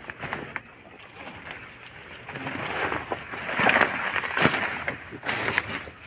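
Dry vines, twigs and leaves crackling and rustling as someone pushes bent over through a dense thicket, with sharp snaps of breaking stems. The rustling builds about two seconds in and is loudest in the middle.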